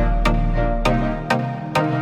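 Electronic background music with a steady, quick beat and sustained synth chords; the deep bass drops out a little past halfway.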